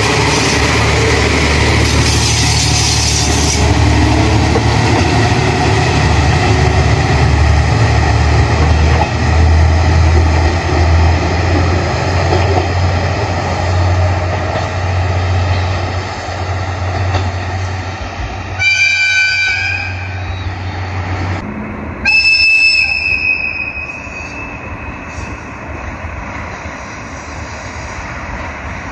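Diesel railcar engine running with a steady low hum as the train moves, then a train horn blows twice, each blast just over a second long, the first about two-thirds of the way through and the second a few seconds later.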